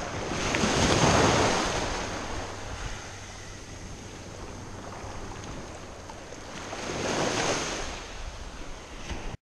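Small surf waves washing in over the shallows, swelling twice, about a second in and again near the end, with some wind noise on the microphone. The sound cuts off abruptly at the very end.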